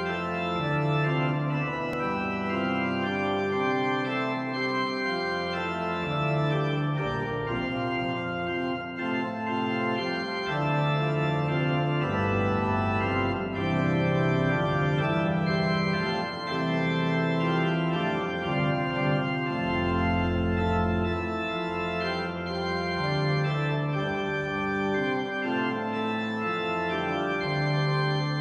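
Pipe organ music from a Hauptwerk virtual organ sampled from the Father Willis organ of Hereford Cathedral, playing a neo-Baroque chorale prelude. Full registration of sustained chords moving over a pedal bass line.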